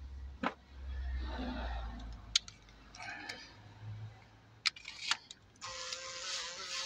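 A few sharp metallic clinks and knocks as tools are handled. Then, about five and a half seconds in, a cordless driver starts running with a steady whine, driving in a fixing bolt.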